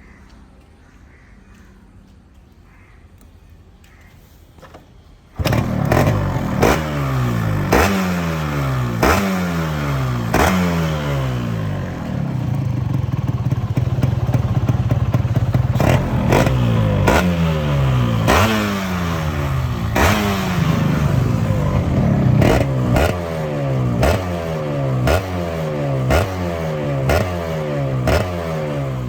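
Yamaha RX 135 two-stroke single-cylinder motorcycle engine through its stock exhaust, coming in suddenly about five seconds in and then revved in repeated throttle blips, about one a second, each snapping up and falling back in pitch, with a longer steady high rev in the middle.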